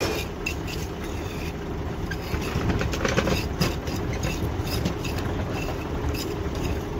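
A heavy truck's engine running steadily close by, a continuous low rumble, with short scraping and tapping sounds of a trowel working fresh concrete in a test-cylinder mould.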